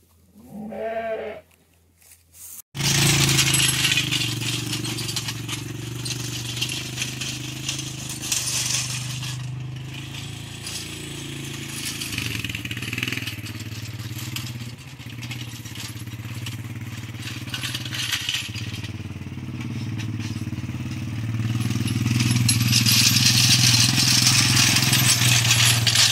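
A brief bleat about a second in. Then, from about three seconds in, a farm vehicle's engine runs steadily under a hiss, growing louder about 22 seconds in.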